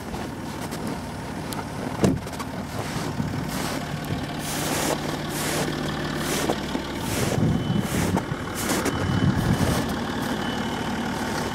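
Footsteps crunching through snow at a walking pace, over a vehicle engine idling steadily.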